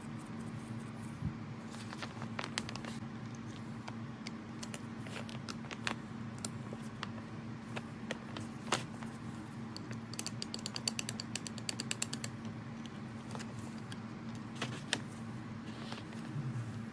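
Scattered metal clicks and taps as small steel lathe parts, a screw and a threaded spindle, are handled and fitted into a cast-iron housing, with a quick run of rapid ticks about ten seconds in. A steady low hum underlies it.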